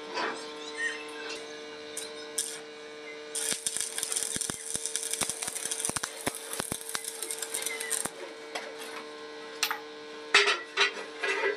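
Electric arc welding with stick electrodes: the arc crackles for about four and a half seconds, starting a little over three seconds in, over a steady electrical hum. Near the end come a few sharp metal knocks as the welded steel piece is handled.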